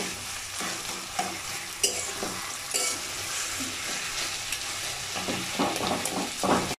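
Metal spatula stirring and scraping fried hilsa fish heads through taro leaves in a hot metal kadai: irregular clacks and scrapes against the pan over a steady frying sizzle, busier near the end, then a sudden cut-off.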